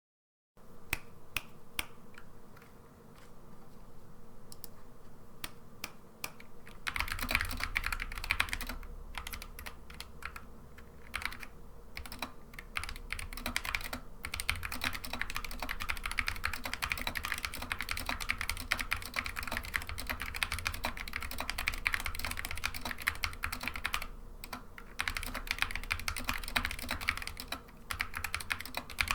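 Typing on a Dierya x Kemove DK61 mechanical keyboard with Gateron Optical Red linear switches, PBT doubleshot keycaps, and added high-density dampening foam and switch films. Sparse, slower keystrokes at first, then fast continuous typing from about seven seconds in, broken by a few short pauses.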